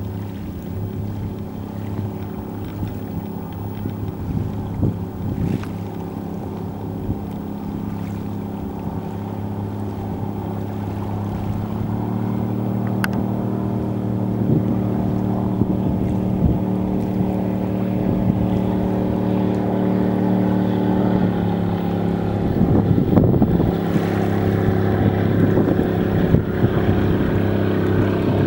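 Steady low engine drone with a stack of even tones, growing gradually louder and shifting pitch about twelve and twenty-one seconds in, over light wind noise.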